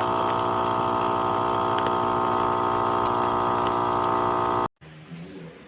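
Espresso coffee machine's pump running with a steady hum as it brews, then cutting off suddenly about four and a half seconds in.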